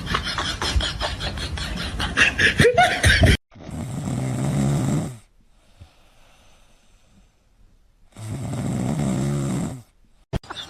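A sleeping pet snoring: two long snores about four seconds apart. Before them, in the first few seconds, a busier sound with rapid clicks cuts off abruptly.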